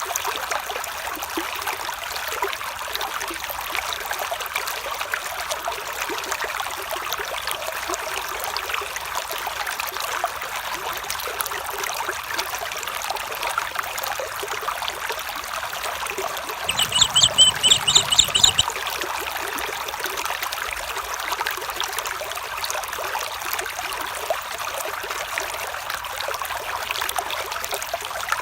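A stream trickling and babbling steadily. About two-thirds of the way through, a short burst of rapid high chirps lasts about two seconds and is the loudest sound.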